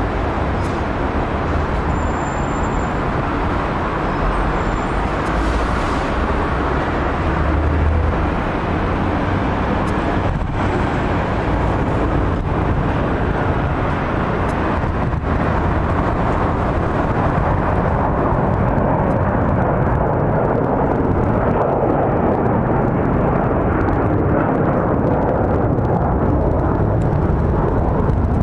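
Jet noise from an McDonnell Douglas MD-82's two rear-mounted Pratt & Whitney JT8D-217-series low-bypass turbofans at takeoff thrust, a steady loud roar through the takeoff roll up to rotation. It grows slightly louder over the run, while the highest hiss fades in the second half.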